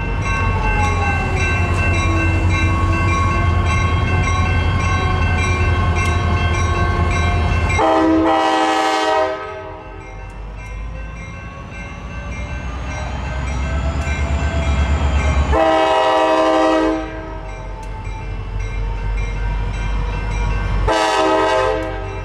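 Freight diesel locomotive horn sounding in long, loud blasts over the low rumble of the locomotives, with the grade-crossing bells ringing.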